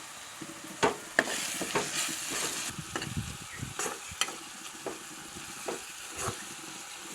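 Onions, ginger-garlic paste and chopped green chillies sizzling in hot butter and oil in a pan while being stirred, with repeated sharp scrapes and taps of the stirring utensil against the pan.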